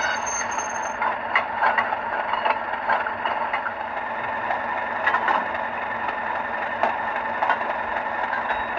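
Bachmann OO gauge Class 37 model's DCC sound decoder playing the English Electric diesel engine sound through its small speaker. It runs steadily, with scattered clicks and rattles throughout and a high squeal in the first second.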